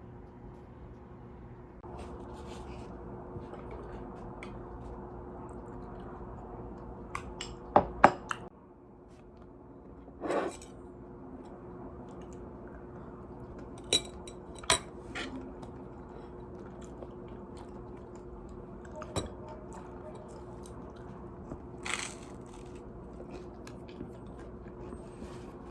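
Dishes and cutlery clinking and knocking a few times over a steady low hum, the loudest a sharp double knock about eight seconds in.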